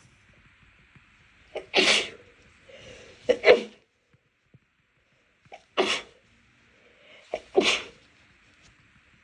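A fit of about five stifled sneezes from a person whose nose is irritated by dust and cleaning products. The sneezes come in quick pairs and singles, a second or two apart.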